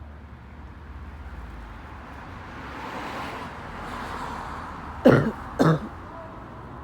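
A man coughs twice in quick succession, about half a second apart, roughly five seconds in. Before that, a soft swell of outdoor noise, like a passing vehicle, rises and fades.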